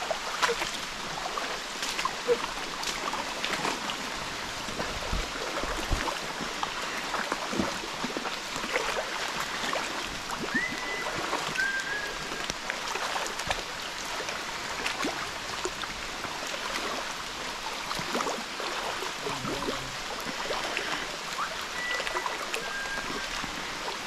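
Floodwater sloshing and splashing as several people wade through it at shin to knee depth, a continuous run of irregular splashes from legs pushing through the water.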